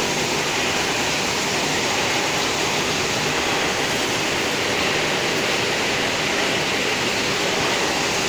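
Cashew processing machinery running: a constant, even rushing noise that does not change.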